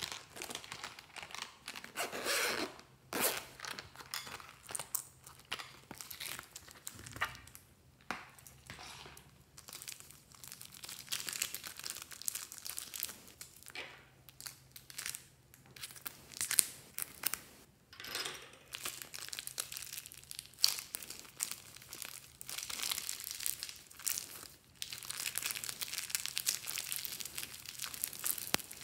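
Thin plastic bags and wrapping crinkling and being torn open by hand, in irregular bursts of crackling and rustling.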